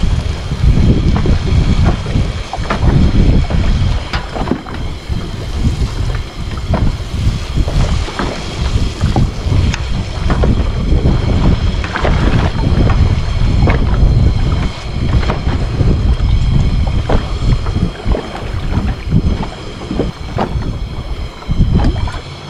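Strong wind buffeting the microphone, a loud low rumble that rises and falls, with scattered sharp clicks and knocks throughout.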